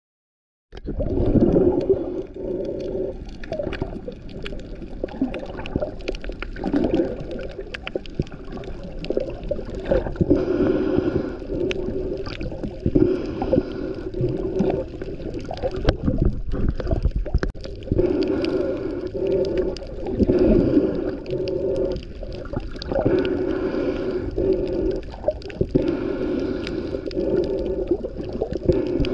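Muffled underwater sound picked up by a camera moving through the water over a reef: a low rush and rumble of water that swells and eases every few seconds, with scattered small clicks. It starts abruptly about a second in.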